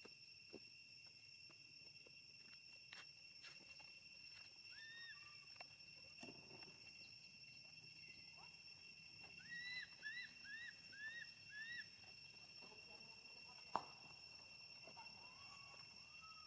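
Infant monkey crying: short high-pitched arched calls, one about five seconds in, then a quick run of five about ten seconds in, with softer lower calls near the end. A single sharp click comes between the run and the softer calls.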